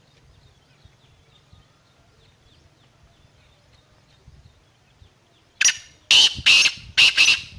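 Black francolin (kala teetar) giving its loud call: one note about five and a half seconds in, a short pause, then four quick notes close together near the end.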